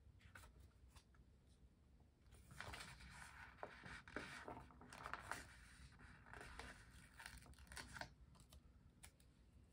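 Faint paper rustling and crinkling as the pages of a sticker book are leafed through, from about two seconds in to about eight seconds.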